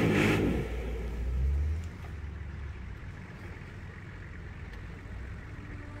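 Nissan Patrol's engine pulling under load as the 4x4 climbs a muddy forest track. It is a low rumble, loudest for the first couple of seconds and then quieter.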